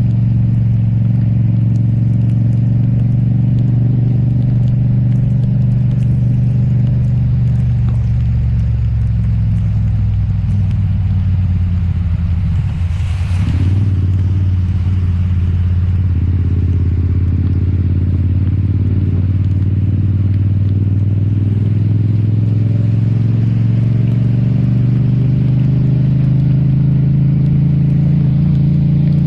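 Yamaha MT-07's parallel-twin engine running at low, steady revs while riding on a wet road. About a third of the way in the revs drop briefly with a short hissing rush, then climb slowly to the end.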